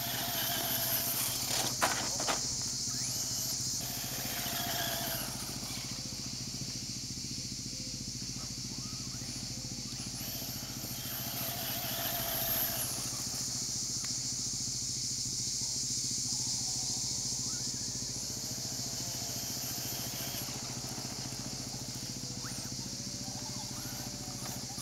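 Traxxas Slash electric RC short-course truck driving on a dirt track: its motor whines in several bursts that rise and fall as it accelerates and passes. There are a couple of sharp clatters about two seconds in.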